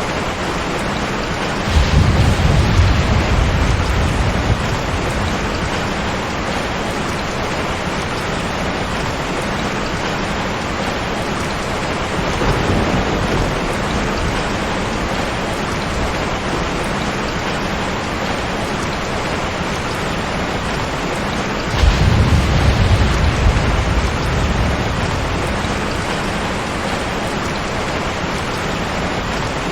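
Steady, heavy rain hissing evenly, with two sudden low rolls of thunder, about two seconds in and again about twenty-two seconds in, each rumbling away over two or three seconds, and a softer rumble between them.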